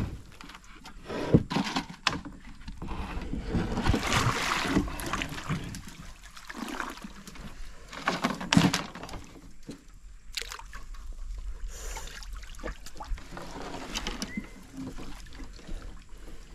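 Water splashing and sloshing as a wire-mesh fish trap is handled at the side of a wooden longboat and worked back into the river, with a few sharp knocks and rattles of the trap against the boat.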